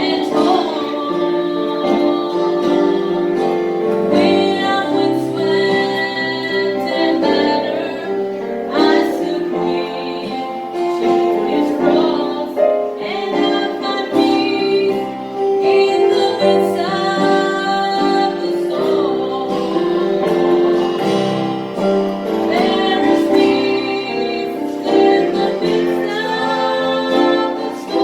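A gospel song: a woman singing a melody over steady instrumental accompaniment.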